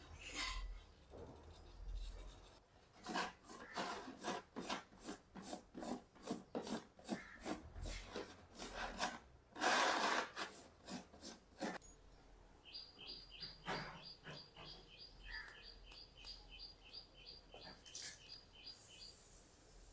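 Hand rubbing strokes on a part of a rusty bicycle being cleaned up, about two to three a second, the strongest stroke near the middle. After the strokes stop, a bird chirps rapidly and repeatedly, about four calls a second.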